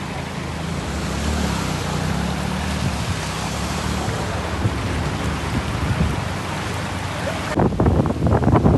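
Heavy rain pouring down, a dense steady hiss. About seven and a half seconds in it cuts off abruptly, and gusts of wind buffeting the microphone take over.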